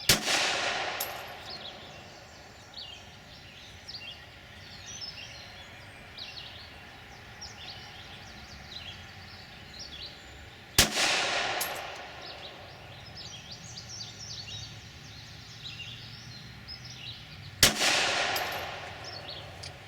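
Three single shots from a Glock 26 9mm subcompact pistol, fired slowly several seconds apart: one at the start, one about 11 seconds in and one near the end. Each is a sharp crack followed by a fading echo.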